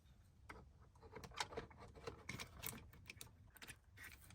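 Faint, irregular small clicks and taps of parts being handled as a replacement clock spring is lined up and pushed onto a car's steering column.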